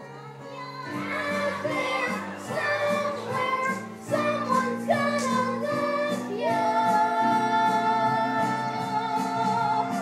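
A musical-theatre song: voices singing together over instrumental accompaniment, moving into a long held note about six and a half seconds in.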